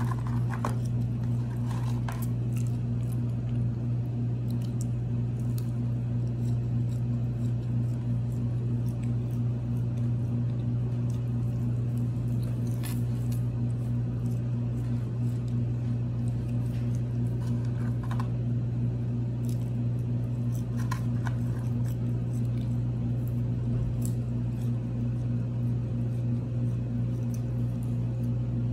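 A steady low hum throughout, under faint wet squishy chewing and small handling clicks as someone eats a chicken sandwich.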